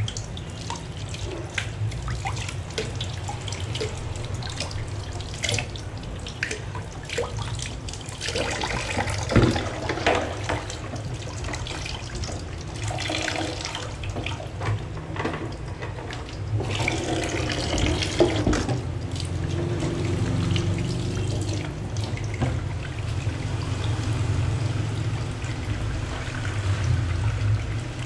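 Washing dishes by hand at a stainless steel kitchen sink with the tap running: steady running water, splashing and sponge scrubbing, with short knocks and clatters of pans and plates, busiest around ten seconds in and again near eighteen seconds.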